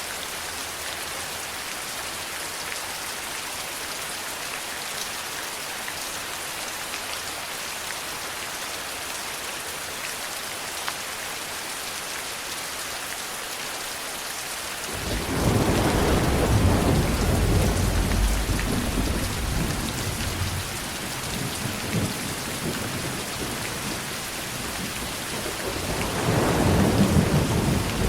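Steady rain hissing, with a roll of thunder rumbling in suddenly about halfway through and slowly dying away, and a second rumble building near the end.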